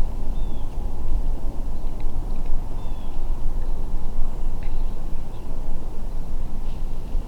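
A steady low rushing noise, with a few faint, short bird chirps scattered over it.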